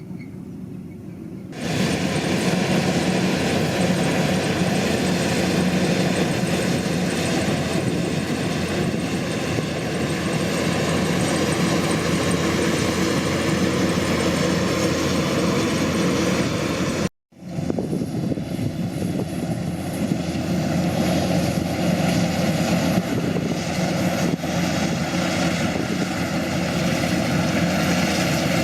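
Combine harvester running steadily while harvesting rice, a loud even engine-and-machinery drone that comes up sharply about a second and a half in. It cuts out abruptly for a moment past the middle, then carries on the same.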